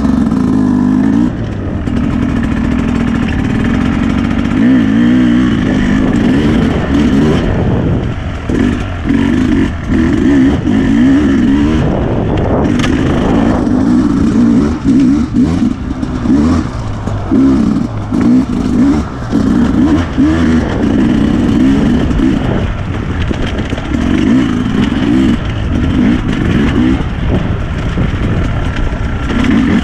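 Enduro dirt bike engine revving up and falling back again and again as the throttle is opened and closed on a rocky trail.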